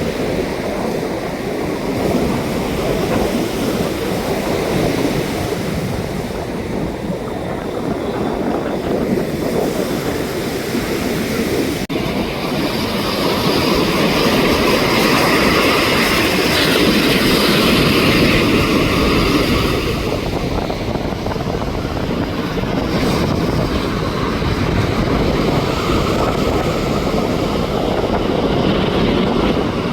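Jet airliner flying over, its engine noise swelling about halfway through and then easing off, over a steady wash of surf and wind.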